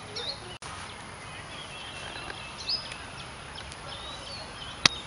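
Several birds chirping and whistling in short calls over steady outdoor background noise, with one sharp click near the end. The sound cuts out for an instant about half a second in.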